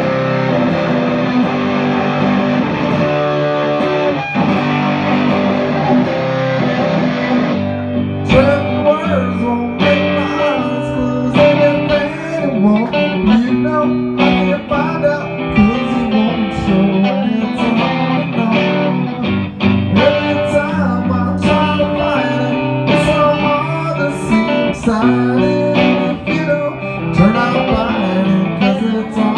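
Distorted electric guitar playing a dense, sustained passage that cuts off about seven and a half seconds in, giving way to strummed guitar chords with a man singing over them, played live.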